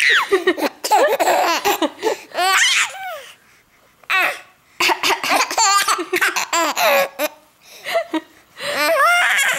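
A baby laughing hard in three bouts of high-pitched belly laughs, with short pauses between them, set off by someone coughing.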